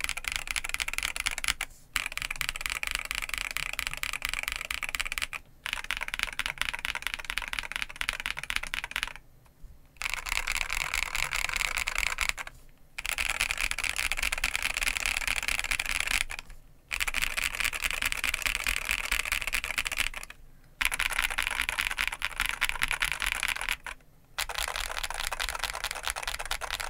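Fast typing on a Monsgeek M3W mechanical keyboard fitted with Akko V3 Cream Blue Pro tactile switches and PBT keycaps: a dense clatter of keystrokes in runs of three to four seconds, broken by short pauses about seven times.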